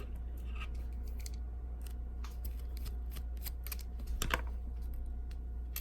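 Light irregular clicks and ticks of a small screwdriver working the tiny screws out of the metal plate inside an iPhone 6 Plus. The clicks come thicker a little after four seconds in.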